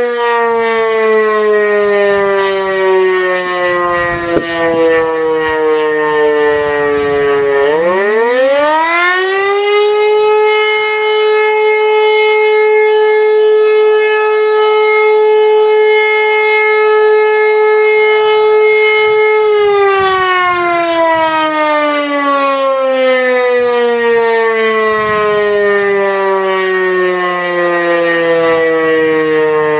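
E57 electro-mechanical siren, driven by a 5 kW three-phase motor, wailing loudly: its pitch falls as the rotor spins down, then about 8 seconds in it climbs steeply to a steady high tone held for about ten seconds. It then falls away again as the rotor winds down.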